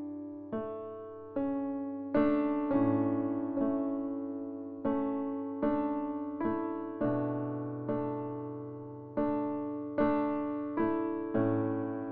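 Background music: a solo electric piano playing slow chords, each chord struck and left to fade.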